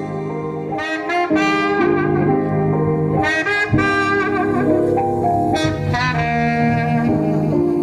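Music played through a Marshall Stanmore Bluetooth speaker: a jazz tune with a saxophone lead playing a running melody.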